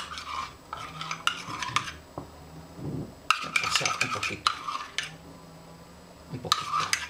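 Metal spoon stirring thick oat batter in a glass mug, clinking and scraping against the sides in several bursts of quick strokes with short pauses between.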